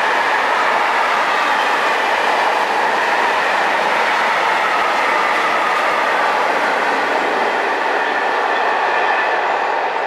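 Freight train of tank wagons passing at speed, its wheels running on the rails in a loud, steady noise that eases off near the end as the last wagons go by.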